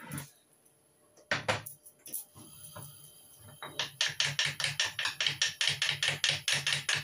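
Fast, even chopping on a cutting board, about five strokes a second, starting about four seconds in after a few single knocks.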